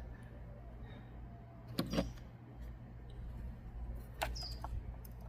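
Hands and a tool working on a plastic-sheathed engine wiring harness: scattered clicks and rustles, with two sharper snaps about two seconds in and about four seconds in, over a low steady hum.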